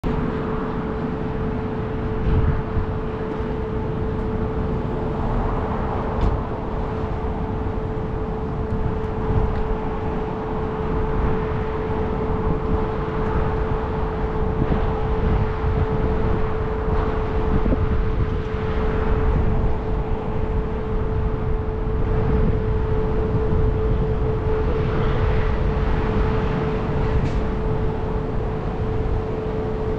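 Car running and rolling slowly, a steady rumble of engine and tyre noise with an unchanging hum over it and a few light knocks.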